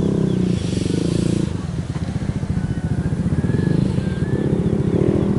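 A small engine running steadily, a low, rapid, even pulse like a motorcycle idling. A few faint, thin high chirps come in about three to four seconds in.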